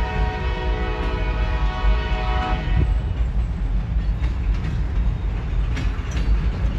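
Freight train passing, its boxcars rolling by with a steady low rumble. A locomotive air horn holds a chord that cuts off about two and a half seconds in, and a few short clanks from the cars follow near the end.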